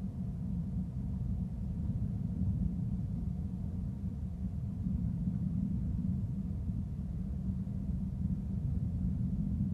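Steady low rumble of outdoor background noise, with no distinct calls or bangs.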